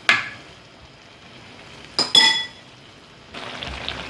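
A cooking pot and its lid clinking twice, the second strike ringing briefly. Near the end, chicken wings frying in oil start sizzling steadily.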